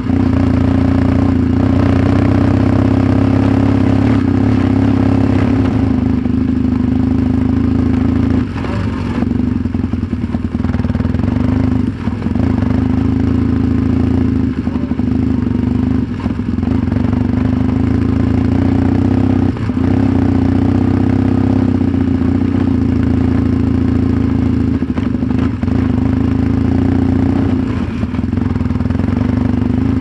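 Yamaha XTZ 750 Super Ténéré's parallel-twin engine running steadily under way off-road, easing off briefly a few times, with scattered knocks and clatter from the rough track.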